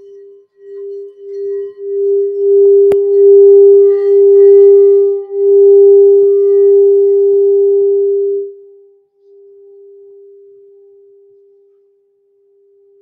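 Crystal singing bowl played by circling a rubber mallet around its rim: a single steady hum that builds in loudness over the first few seconds, with one sharp click about three seconds in. It drops suddenly about eight and a half seconds in and then fades away.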